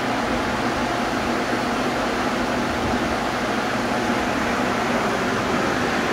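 Portable blower fans running at a steady speed: a constant, even rush of air.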